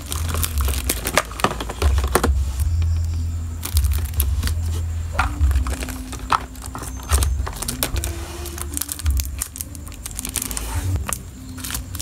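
Crinkling of thin plastic packaging and light clicks and rattles as small plastic items, a beaded keychain and a claw hair clip, are handled and set down on a desk, over soft background music.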